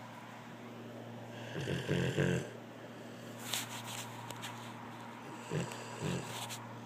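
Snoring: a loud snore about two seconds in, a breathy rush at about three and a half seconds, and another snore near the end, over a steady low hum.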